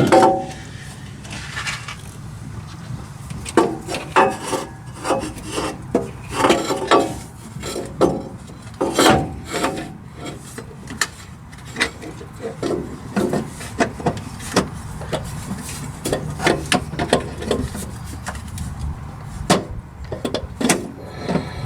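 Irregular knocks, clunks and scraping as a heavy replacement starter motor is worked up into its mounting against the engine from under a pickup truck.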